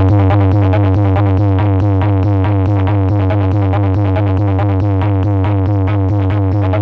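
Loud electronic DJ music with a fast repeating beat and very heavy bass, played through a large DJ sound-box system.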